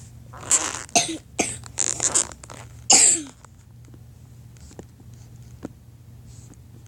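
A person coughing in a fit of about six harsh coughs over three seconds, the last one the loudest, then stopping.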